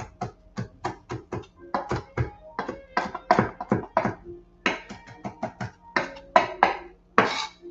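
Chef's knife chopping fresh basil on a wooden cutting board: quick, irregular knife strikes, several a second, with a brief pause about four seconds in.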